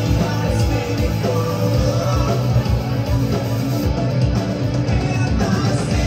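A rock band playing live through a loud PA: a steady drum beat under electric guitars and bass.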